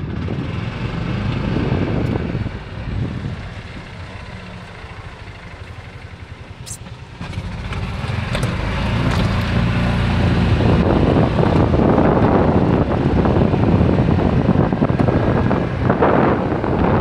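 Open golf cart driving along a road: motor and tyre noise with wind buffeting the microphone. It gets louder about halfway through.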